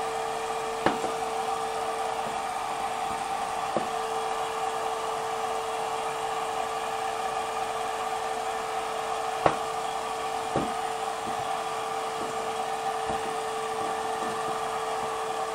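Steady machine hum with a constant mid-pitched whine, broken by a few sharp light taps, the loudest about halfway through.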